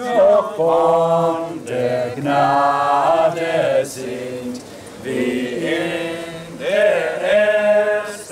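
A small group of men and women singing a hymn together in unison, in phrases of held notes with short breaks between them.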